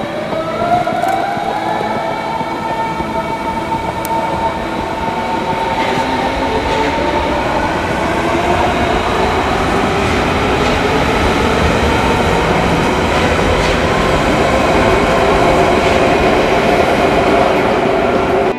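S-Bahn Berlin class 481 electric multiple unit pulling away from the platform. Its traction drive whines up in pitch over the first two seconds, then holds a steady tone while the carriages roll past with a rising rumble of wheels on rails.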